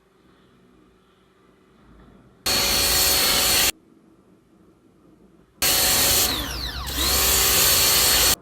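Electric pressure washer running in two bursts, a short one of about a second and then a longer one of nearly three seconds, each starting and stopping abruptly, with a steady high motor whine and hiss of spray. Partway through the second burst the whine dips in pitch and comes back up.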